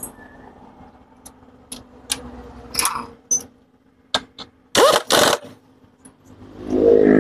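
Sharp metal clicks and knocks from tyre-shop work on a motorcycle's rear wheel, with two short, loud noisy bursts about five seconds in. A louder droning mechanical sound builds up near the end.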